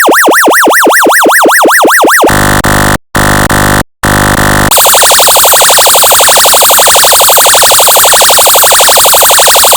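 Electronically generated emergency siren tones from an audio function generator. First comes a fast yelp that sweeps up and down about four times a second. About two seconds in it switches to a steady, buzzy horn-like tone that cuts out twice. Past the halfway point it changes to a rapid pulsing warble.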